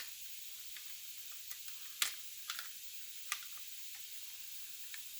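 Three small sharp clicks of a Beretta A300 Outlander shotgun's metal parts being handled during reassembly, the loudest about two seconds in, over a steady faint hiss.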